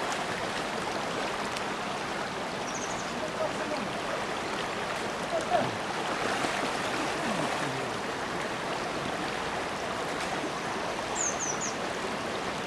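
River water rushing steadily, with a few brief high chirps about three seconds in and again near the end.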